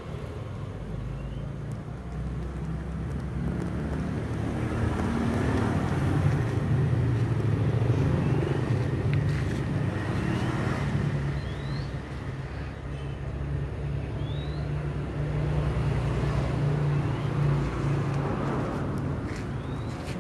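Low, steady rumble of motor traffic that grows louder through the first half, eases, and swells again later on. A few faint short chirps sit above it.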